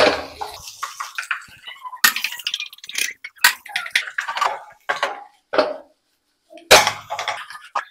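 Wooden spatula scraping and knocking against a non-stick kadai as onion and capsicum are stir-fried, in irregular clatters. After a short pause near the end comes the loudest clatter.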